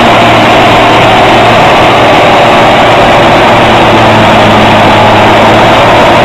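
Fendt tractor's diesel engine running hard and steady while the tractor is bogged down in deep mud.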